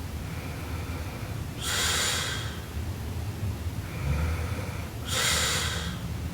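A sleeping woman snoring. Each breath is a low snore followed by a loud, breathy rush of air, coming about every three and a half seconds, twice.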